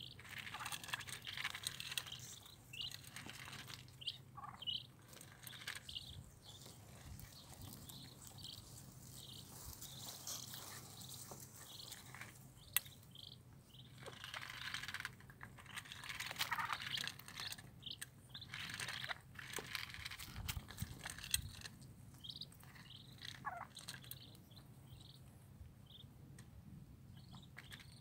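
Madagascar teal ducklings peeping: short, high chirps in clusters, thickest about halfway through, with scattered sharp clicks as bills peck at feed pellets in a metal bowl.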